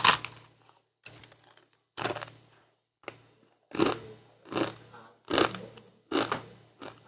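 Someone chewing crunchy snacks close to the microphone: a run of crisp crunches, roughly one a second.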